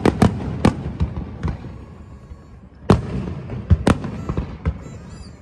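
Aerial fireworks shells bursting. A quick run of sharp bangs comes in the first second, then single loud bangs about three seconds in and again nearly a second later, with smaller pops and low rumbling between.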